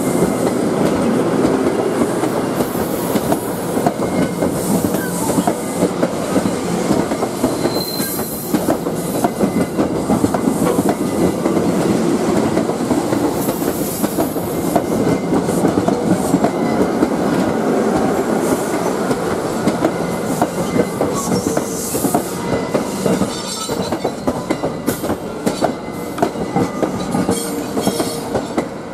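NJ Transit passenger coaches rolling past at close range, a steady wheel-on-rail rumble broken by many short clacks and several brief high-pitched wheel squeals. It gets a little quieter near the end as the last car, the cab car, passes.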